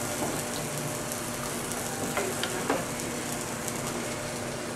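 Chicken frying in a nonstick skillet: a steady sizzling hiss, with a few light clicks.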